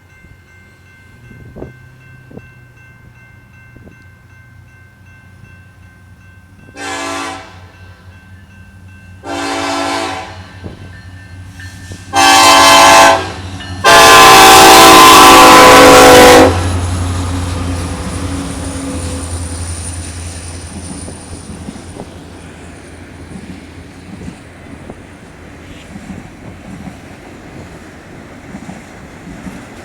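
Diesel locomotive horn sounding four blasts about two to three seconds apart, each louder than the last, the fourth held about two and a half seconds. Then the train passes: a low engine rumble and wheels rolling on the rails, slowly fading.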